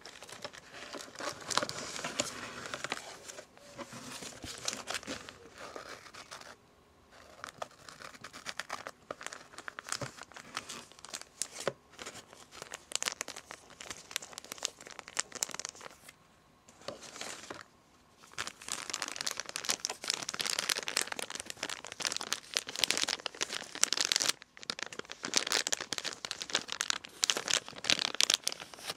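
Paper packaging crinkled and crumpled by hand, in long crackly bursts with a few brief pauses, busier and louder in the second half.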